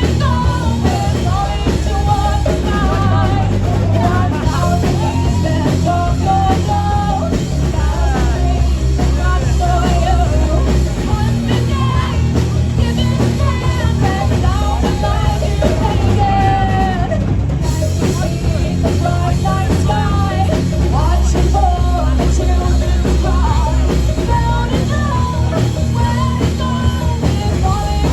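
Live rock band playing a song: drum kit, bass and guitar, with singing.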